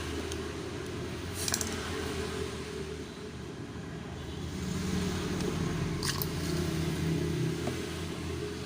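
A few short, sharp metallic clicks, about a second and a half in and again about six seconds in, as screws are driven back into a car headlamp housing, over a steady low hum.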